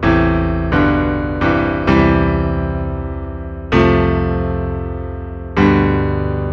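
Background music: electric piano chords struck one at a time, each ringing and slowly fading, about five in all.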